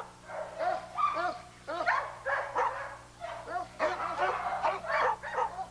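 Bouvier des Flandres barking repeatedly in a quick string of short barks, two or three a second.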